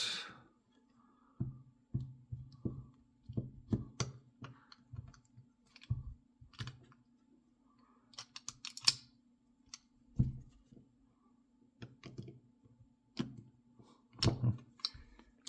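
Light, irregular clicks and taps of small metal tools and parts against a Mul-T-Lock padlock being taken apart, a few every second or two with short pauses.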